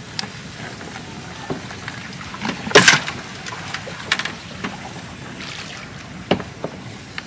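A small wooden boat moving through a flooded rice paddy: water lapping and trickling, with scattered knocks and clicks and one louder clatter about three seconds in.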